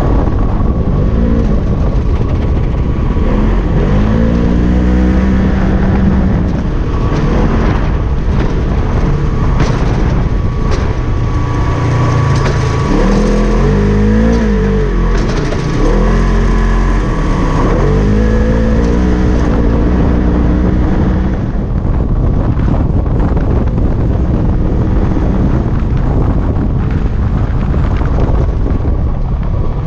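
Polaris RZR XP 1000 UTV's parallel-twin engine running hard under racing load, heard from inside the cab, its pitch rising and falling again and again with the throttle over a steady rushing noise.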